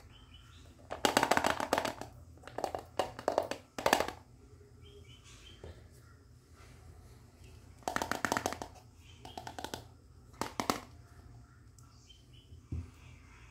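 Small plastic toy kitchen pieces handled and shifted on a cloth-covered surface: short bursts of light plastic clattering and rustling, several times, with quiet in between.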